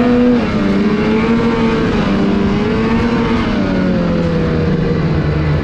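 Lynx Rave RE 600R snowmobile's Rotax 600R E-TEC two-stroke twin running hard at speed, its revs wavering up and down, then easing off over the last couple of seconds.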